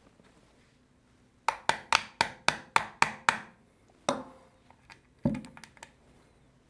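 Screwdriver handle tapping the screw used as a punch to drive the trigger-group pin out of a Remington 870 receiver: a quick run of about eight sharp taps, about four a second, then one more tap. A duller knock follows about five seconds in, with a few light clicks.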